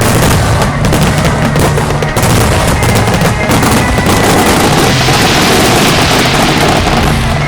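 A wide starmine fireworks barrage: many shells bursting in rapid succession, with a dense hissing crackle that builds in the second half. Music plays underneath.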